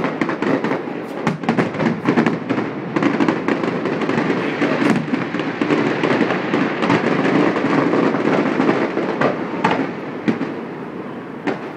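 Fireworks finale: a rapid, continuous barrage of overlapping bangs and crackles from many shells at once, thinning out a little near the end.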